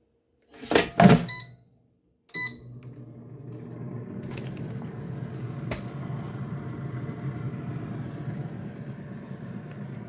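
Power AirFryer XL being closed and started: the basket goes in with a loud clatter, the control panel beeps twice, then about two and a half seconds in the fan starts and runs steadily with a low hum, growing a little louder over the next second or two.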